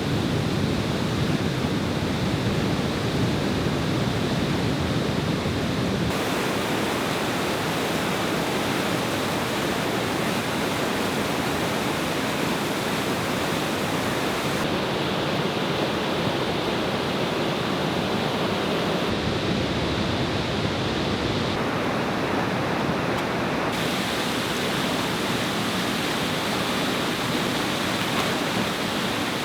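Rushing water of a waterfall, a steady loud roar of noise whose character changes abruptly several times across cuts between shots.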